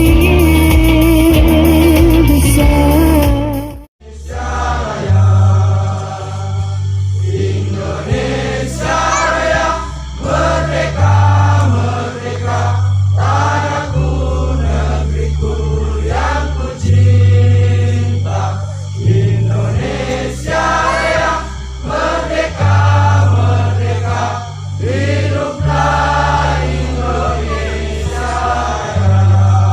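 Background music: one track cuts off about four seconds in, and a song with singing over a steady bass line follows.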